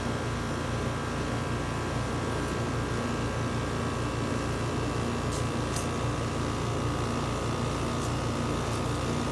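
2006 American Standard Allegiance 14 4-ton air-conditioner condenser running steadily, its scroll compressor humming under the outdoor fan, with a few faint high tones over the drone. It sounds smooth.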